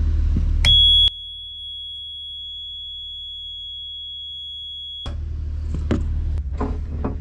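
Alarm buzzer on a Bukh lifeboat engine control panel, sounding one steady high tone for about four seconds after the power is switched on, then cutting off. The cooling-water temperature alarm comes on with it although the engine is cold, a false alarm the owner traces to the temperature transmitter or its connections.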